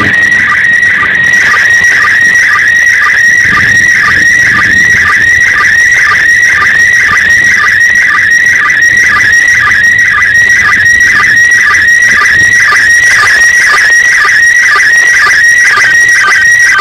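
Slow-scan television (SSTV) signal from the International Space Station, coming from a handheld FM transceiver on 145.800 MHz: a loud, steady high tone broken by short, lower sync beeps about twice a second, the line-by-line sending of an image.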